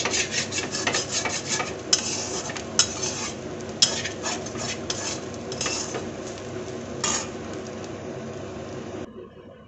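Steel spatula scraping and stirring ground coconut roasting in ghee in a stainless steel kadhai, pressed along the pan's bottom so it doesn't stick. A quick run of scrapes slows after about three seconds to a few single scrapes.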